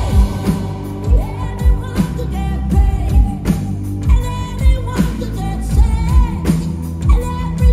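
Live pop-rock band playing, with a lead vocalist singing a melody that slides between notes over drums, bass and electric guitar.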